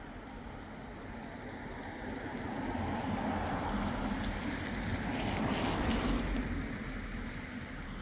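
A vehicle passing by, its engine and tyre noise swelling to a peak about six seconds in, then fading away.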